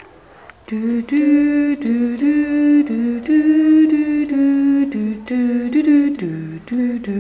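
A voice singing a wordless tune, one held note after another, each about half a second long and stepping up and down in pitch.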